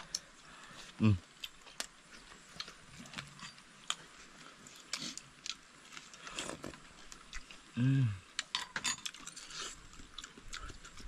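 Eating sounds: chewing with scattered small clicks and ticks, broken by two brief vocal sounds, one about a second in and one near eight seconds.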